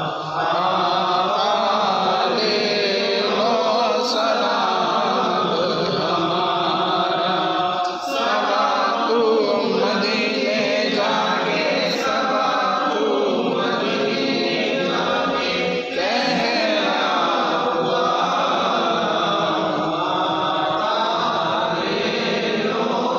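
Men's voices chanting an Urdu Salat-o-Salam, a devotional salutation to the Prophet, unaccompanied in a slow repeating melody, with a brief pause about every eight seconds.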